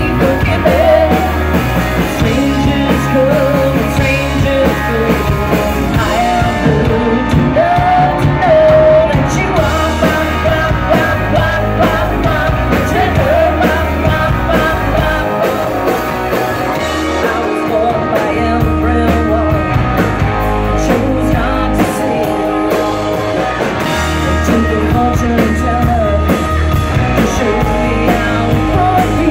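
Live rock band playing a song: a woman's lead vocal over electric guitars, bass and drums, heard from within the audience.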